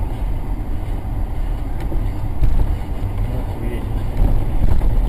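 Road vehicle driving: a steady low rumble of engine and road noise.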